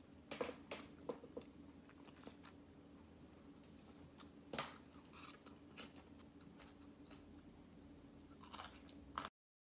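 Faint close-up chewing of a mouthful of rice, egg and kimchi, with scattered crunches and clicks over a low steady hum. The audio cuts off suddenly near the end.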